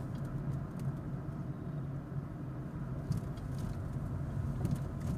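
Fiat Doblò camper van driving slowly, heard from inside the cabin: a steady low engine and road drone, with a few faint clicks.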